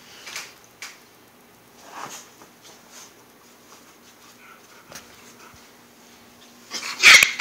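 Dogs at play: a few faint short sounds, then a loud bark near the end.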